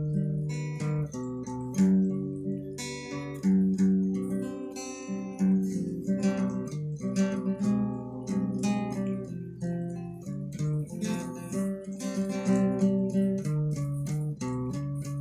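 Solo acoustic guitar playing an instrumental passage: strummed and picked chords with a melody line and no singing.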